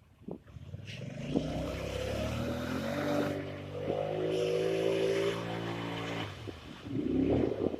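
Polaris Sportsman 850 ATV's parallel-twin engine revving up, held at high revs for a few seconds, then falling back, as the machine is driven with a broken front outer CV joint. A short rough noisy burst follows near the end.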